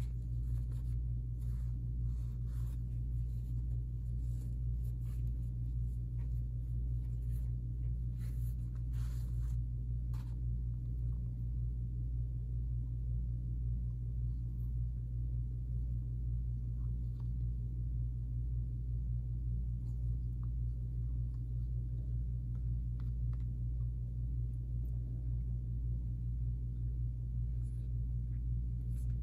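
A steady low hum, with faint cloth rustling and soft handling clicks in roughly the first ten seconds as a cotton drawstring bag is slid off a leather wallet; the handling is much quieter after that.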